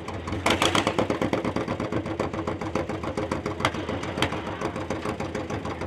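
Antique pulling tractor's engine running with a rapid, even pulsing beat. It surges louder about half a second in, then settles to a steady beat.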